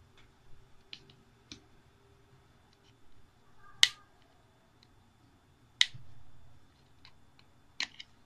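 Sharp plastic clicks and taps from handling a Samsung Galaxy J5 with its back cover off while its battery is taken out: three louder clicks about two seconds apart, with a few fainter ones near the start.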